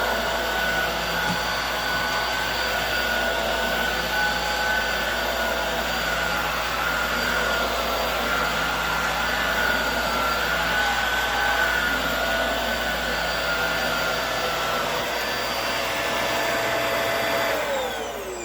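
Hoover Air Steerable WindTunnel upright vacuum cleaner running steadily with a constant whine over a rug, then switched off near the end, its motor pitch falling as it spins down.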